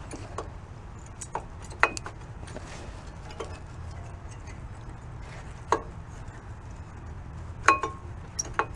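Scattered light metallic clicks and clinks, a dozen or so at uneven intervals, as brake pads are pushed and seated into the front caliper bracket and its pad clips on a 2008 Honda Odyssey; a low steady hum underneath.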